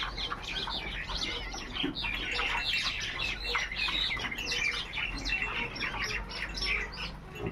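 Many small birds chirping at once, a dense chatter of short, high chirps that grows busier from about two seconds in.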